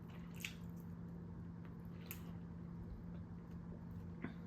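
Close-up mouth sounds of someone chewing food, with a few brief wet smacks and clicks, over a faint steady hum.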